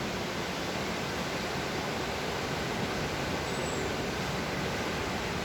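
Floodwater in a forest stream rushing in a steady, unbroken roar, with one faint brief high note about three and a half seconds in.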